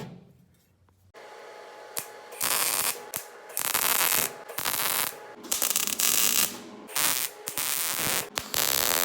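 MIG welder laying short welds on a steel bracket, a crackling hiss in about seven bursts of half a second to a second each, starting about two seconds in, over a steady low background noise.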